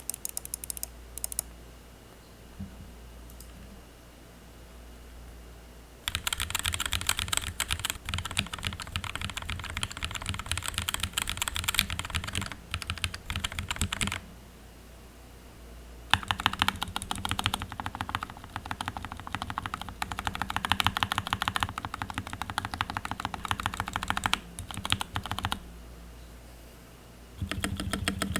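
A mechanical keyboard with linear switches being typed on fast, in long bursts of rapid, dense keystroke clicks separated by short pauses.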